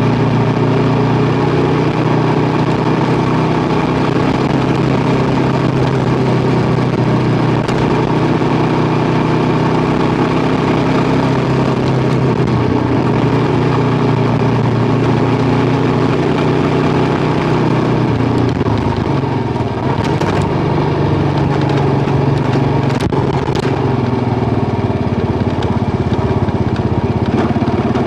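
Kawasaki KLR650's single-cylinder engine running steadily as the motorcycle rides along a gravel road, heard from the rider's helmet. The engine note shifts about two-thirds of the way through, with a few sharp ticks soon after.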